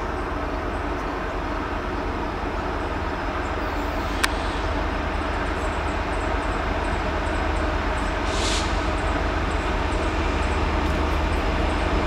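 Norfolk Southern diesel freight locomotives approaching, a steady low rumble growing gradually louder. A sharp click comes about four seconds in, and a short hiss past the middle.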